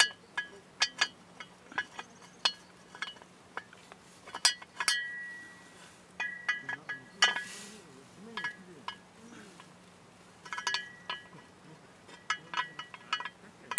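Metal cookware and utensils clinking and tapping, a string of sharp clicks, many with a short metallic ring, and a brief burst of hiss about seven seconds in.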